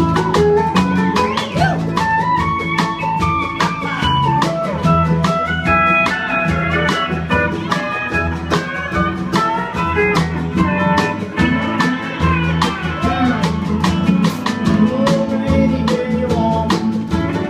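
Country band playing an instrumental break with no vocals: a lead melody line and guitar over bass and a steady drum beat.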